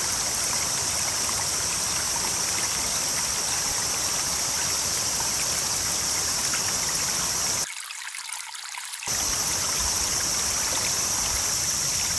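Shallow stream flowing steadily over rocks, with a steady high-pitched insect buzz over it. The sound drops away sharply for about a second and a half about eight seconds in.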